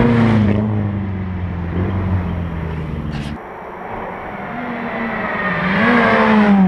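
Rally cars driving past at full speed. One car's engine note falls away as it passes just after the start; after an abrupt break about halfway, a second car approaches with its engine revving higher, dipping once at a gearchange, and passes right at the end.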